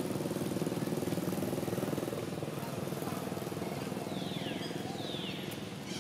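A small engine running steadily, louder in the first two seconds and then easing off slightly. Two short falling whistles come near the end.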